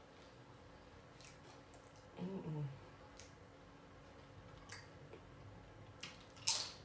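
Quiet mouth sounds of eating nachos: soft chewing clicks and smacks, with a short closed-mouth 'mm' hum about two seconds in and one louder, sharp mouth noise near the end.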